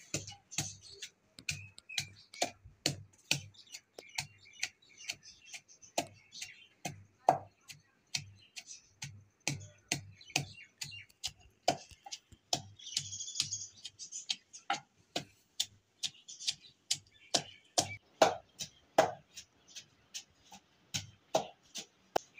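Long wooden pestle pounding in a wooden mortar, crushing garlic: steady, even knocks about two to three a second, each with a dull thud.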